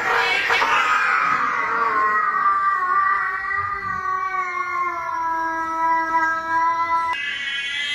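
Domestic cats fighting: a brief scuffle in the first second, then one cat's long, low yowl that slowly drops in pitch. It stops abruptly about seven seconds in, where a higher-pitched yowl starts.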